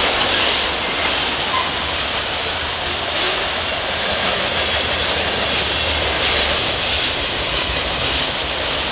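Mixed freight train cars, covered hoppers and autoracks, rolling past: a steady rumble and rush of steel wheels on the rails.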